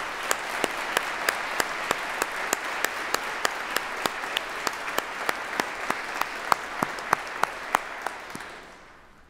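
Audience applauding, with one close pair of hands clapping about three times a second above the rest. The applause dies away near the end.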